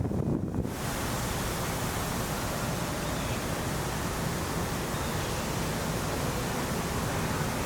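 Heavy rain pouring down in a steady, even hiss that sets in suddenly about a second in.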